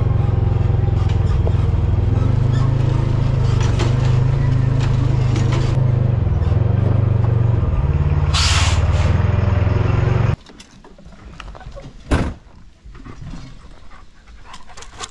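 Vehicle engines driving in a steady low drone, with a short burst of air hiss a little past the middle. About two-thirds of the way through the engine sound cuts off suddenly, leaving quieter outdoor sound and one sharp click.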